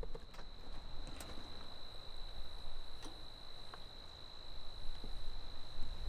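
An insect trilling steadily at one high pitch, over a low rumble that grows near the end, with a few faint ticks.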